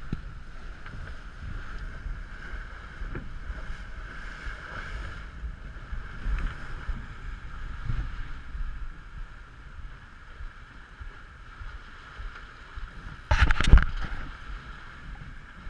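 Wind buffeting the microphone and water rushing along the hull of an Ultra 30 sailboat sailing fast. A brief loud thump comes near the end.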